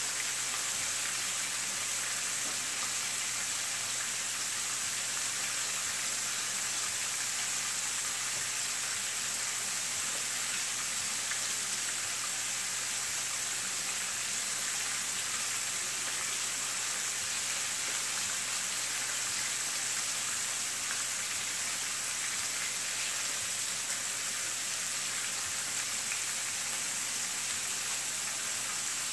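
Butterfish pieces shallow-frying in hot oil in a skillet: a steady, even sizzle, the pieces golden brown and fully cooked. A low steady hum runs underneath.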